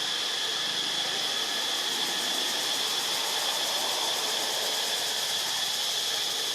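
Steady outdoor background: an even hiss with a constant high-pitched drone.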